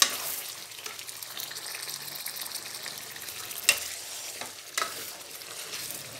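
Chicken karahi masala sizzling in a steel kadai as it is stirred and scraped with a ladle, with three sharp knocks of the ladle against the pan: at the start, just under four seconds in, and near five seconds. The masala is being fried down (bhuna) with constant stirring so it does not stick to the bottom.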